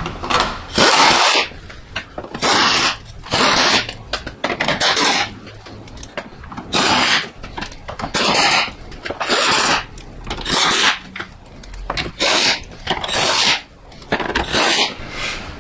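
Quarter-inch air impact wrench run in about a dozen short bursts, driving in the grille shutter's bolts one after another and only lightly snugging them.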